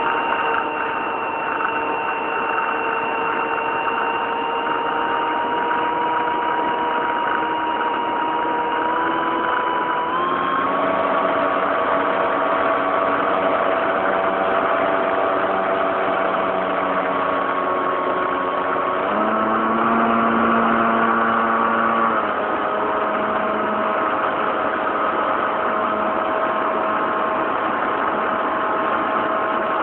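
Motor and propeller of a radio-controlled Cessna 182 model heard from a camera on board, a steady whine over rushing air. It steps up in pitch about ten seconds in, shifts again a little before twenty seconds, and drops back a few seconds later.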